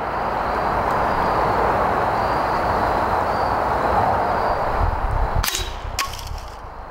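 Steady rushing outdoor background. Near the end come two sharp cracks about half a second apart: a shot from a Stoeger S4000-E .22 break-barrel pellet rifle with a suppressor built into its barrel, at a target 30 m away.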